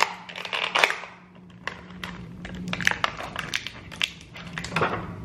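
Clear plastic packaging crinkling and crackling as a small action figure is worked out of it, with irregular sharp clicks and rustles.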